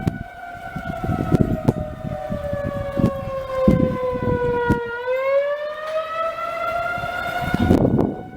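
Outdoor civil defense warning siren sounding for a tornado warning. Its pitch slowly falls for about five seconds, then rises again. Low rumbling bursts run under it, the loudest near the end.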